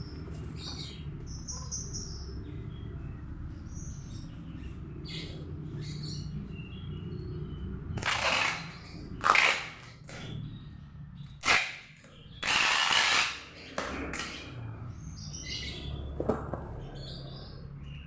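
Small birds chirping in the background over a steady low hum, with several short, loud noises through the middle, the longest lasting about a second.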